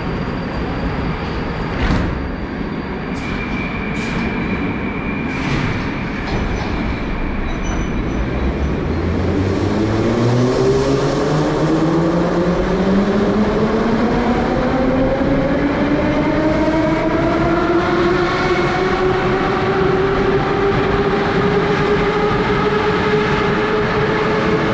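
Metro train at the platform: its doors shut with a thump and a few knocks, then the train pulls away. The traction motors whine, rising steadily in pitch as it accelerates and levelling off near the end, over the rumble of the wheels.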